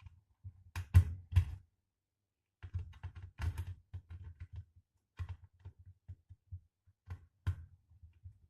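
Irregular clicks and knocks of a hand tool and the heat gun's plastic housing being handled during disassembly, with a few sharper knocks, the loudest about a second in.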